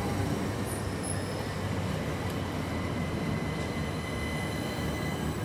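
Southern Class 377 Electrostar electric multiple unit moving slowly through the platform: a steady rumble of wheels on rail with a faint, steady high whine over it.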